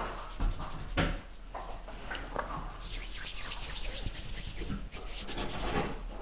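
Hands rubbing together, rolling a small piece of fondant between the palms, with a couple of light knocks in the first second.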